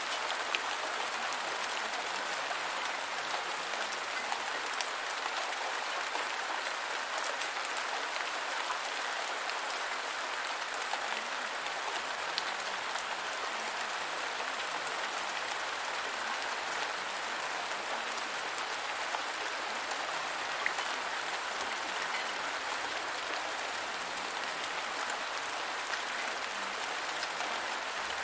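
Steady rain falling: an even hiss with a few sharper drop ticks now and then.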